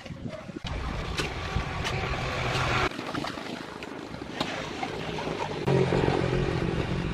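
A few sharp knocks of a rubber mallet and hands working the pieces of a plastic planter mould, over a steady low rumble that cuts off about three seconds in and comes back louder near the end.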